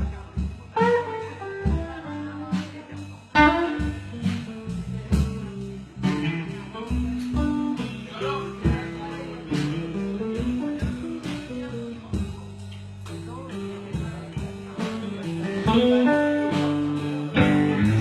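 Blues band playing an instrumental break between verses, a guitar picking melody lines over a bass line and a steady beat.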